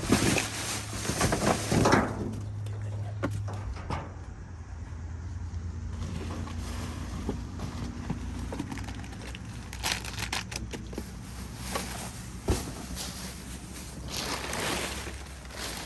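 Plastic trash bags and packaging rustling and crinkling as hands rummage through a bag of discarded items, in crunchy spells at the start, around ten seconds in and near the end, over a steady low hum.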